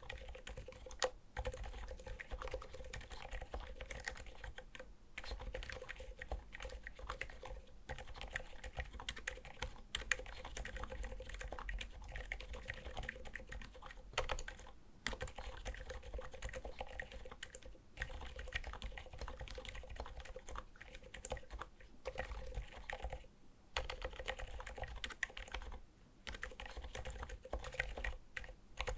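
Steady typing on a Skog Reboot mechanical keyboard with Seriko silent linear switches: a continuous run of keystrokes, broken by a few short pauses.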